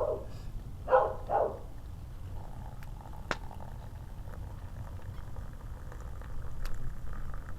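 A dog barks twice in quick succession about a second in, short sharp barks over a steady low rumble, with a few faint crackles from a small campfire afterwards.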